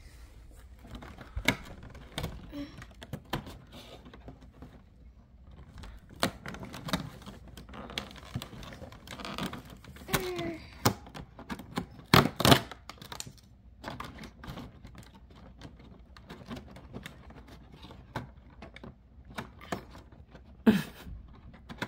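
Fingers tapping, scratching and pressing at a cardboard Advent calendar box while a small door is worked open: irregular clicks, taps and knocks, the loudest about twelve seconds in and again near the end.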